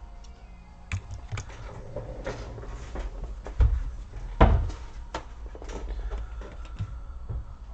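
Handling noise from working on an opened laptop: scattered clicks and light knocks of parts and tools set down on a work surface, with two louder thumps about three and a half and four and a half seconds in.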